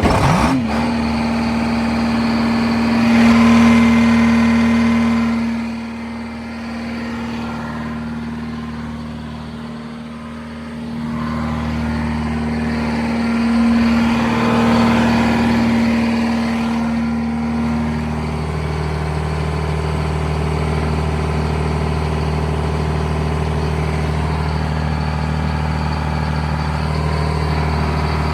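1971 Insley excavator's diesel engine running, starting abruptly, with its load rising and falling twice. A steady whine sits over the engine and stops about eighteen seconds in, after which the engine runs on evenly.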